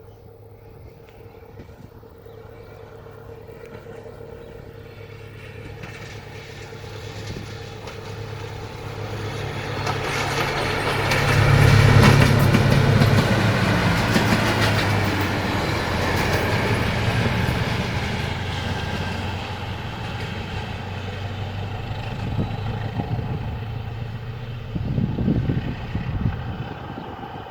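Diesel passenger train pulling away and passing: its engine hum builds over the first ten seconds, is loudest about twelve seconds in, then carries on as a steady run of engine and wheel noise. A brief low rumble comes near the end.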